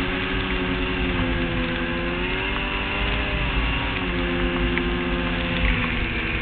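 Polaris XC800SP snowmobile's two-stroke twin engine running at trail speed, its pitch rising a little about two seconds in and easing back down about four seconds in, over a low rumble.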